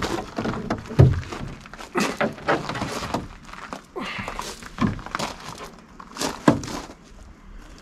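A string of clunks and knocks as the folding ROPS roll bar of a Kubota tractor is unpinned and swung up, the loudest thunk about a second in.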